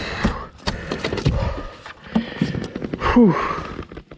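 A large bass thrashing and splashing at the side of a kayak as it is landed by hand without a net, with a run of irregular knocks and rattles against the boat. About three seconds in, a man gives a short grunt that falls in pitch.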